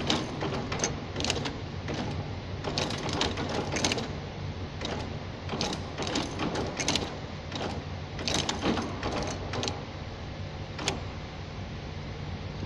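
Tea bag packing machine running, its cams and levers clattering with sharp irregular clicks over a steady motor hum. The clatter stops about ten seconds in, leaving the hum.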